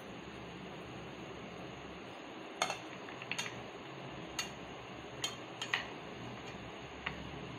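Light clinks of kitchenware: a ceramic bowl and steel plate being handled on the counter, about six short sharp taps scattered through the middle and latter part, over a faint steady hiss.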